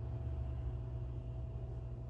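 Low, steady rumble of a sleeper's snoring breath, between louder snores.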